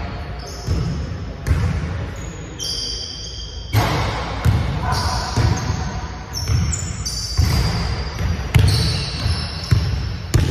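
Basketballs bouncing on a hardwood gym floor, with irregular echoing thumps and high, short sneaker squeaks.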